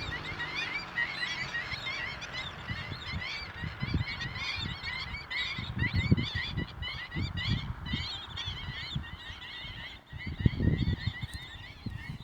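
A flock of seagulls calling, with many short, overlapping chirping cries throughout. Low rumbles run underneath, loudest about six seconds in and again near the end.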